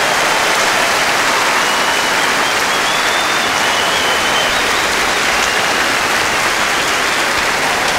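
Large audience applauding steadily at the end of a performance, with a few faint whistles.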